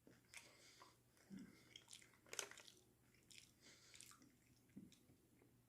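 Near silence with faint chewing and mouth smacks from someone eating a chicken nugget, scattered soft clicks with a slightly louder one about two and a half seconds in.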